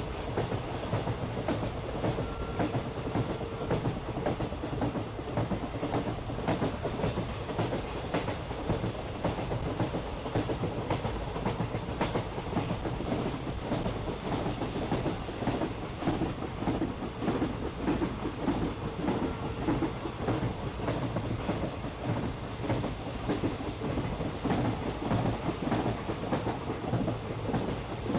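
Park toy train running on its narrow track, its wheels clacking over the rail joints and the carriages rattling steadily.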